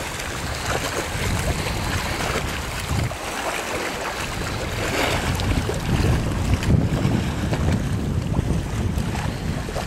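Wind buffeting the microphone in gusts over the wash of choppy river water. The low rumble grows heavier about halfway through.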